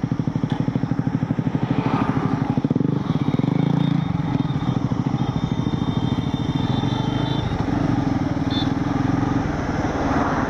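Bajaj Pulsar N250's single-cylinder engine running as the motorcycle pulls away and rides on, its pitch shifting as it goes through the gears, with wind and road noise over the handlebar-mounted camera.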